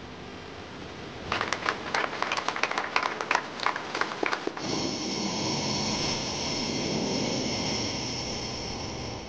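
A small group clapping, sharp separate claps for about three seconds. Then a jet engine takes over, running steadily at idle with a constant high whine: the X-59's single General Electric F414 turbofan.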